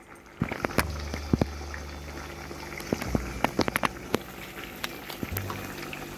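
Chicken pieces and whole tomatoes frying in oil and garlic-ginger liquid in a karahi, bubbling steadily with frequent sharp crackles and pops, over a low hum.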